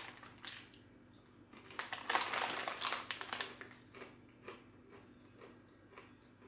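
Crunchy jerk-style plantain chips being bitten and chewed: a burst of crisp crackling crunches about two seconds in, then slower, softer chewing crunches.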